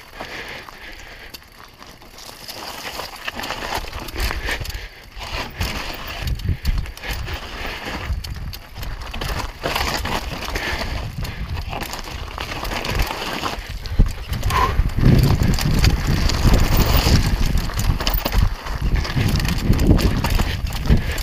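Mountain bike descending a steep, rocky trail: tyres crunching and clattering over loose stones, with knocks and rattles from the bike and a low wind rumble on the helmet microphone. The clatter grows louder about two-thirds of the way through as the trail gets rougher.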